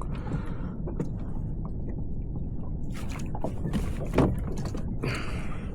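Water sloshing around a kayak at sea, with wind rumbling on the microphone and a few sharp knocks, the loudest about four seconds in.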